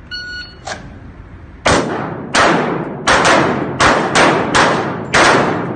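A shot timer gives a short electronic start beep, then pistols fire about eight rapid shots over the next three and a half seconds, each ringing with reverberation.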